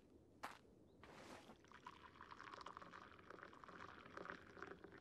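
A bowl set down on a wooden table with a short click, then liquid poured from a small jug into the bowl: a soft, trickling pour that runs for about three seconds.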